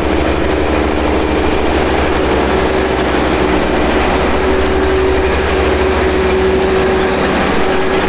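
Self-propelled carrot harvester at work, its diesel engine and conveyors running steadily as it lifts carrots by their tops and elevates them into a trailer; a low engine drone with a steady hum above it.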